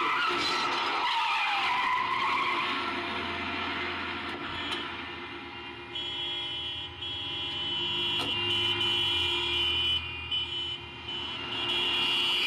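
A car braking hard, its tyres skidding and squealing. A steady high tone runs through the second half.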